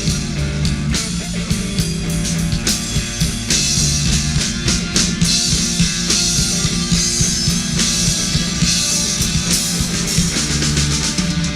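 Rock band playing an instrumental passage between sung lines: drum kit with bass drum hits, electric guitar and bass.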